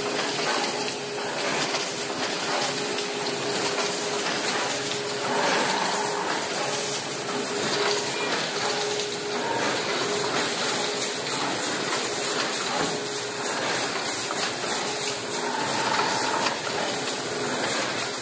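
Automatic blister packaging machine running: a steady hissing noise with a constant hum tone underneath, and a fast, regular ticking that comes in near the end.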